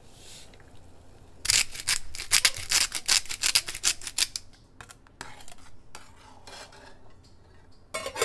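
Rapid crinkling rustle as granulated consommé is shaken out of a foil stick packet into a saucepan of soup. A few soft ticks follow as salt is shaken in. Just before the end a stainless steel lid clinks onto the saucepan.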